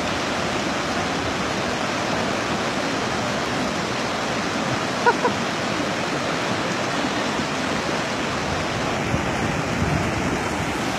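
Steady rush of a fast, swollen river in flood, with a brief call about five seconds in.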